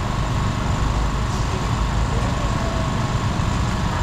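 Steady low engine rumble with a faint constant whine above it, running evenly throughout.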